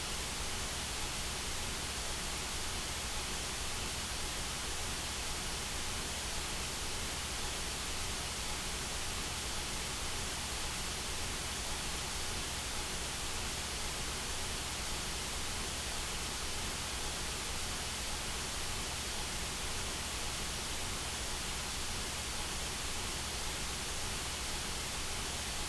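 Steady white noise: an even, unchanging hiss spread across the whole frequency range, with no events or variation.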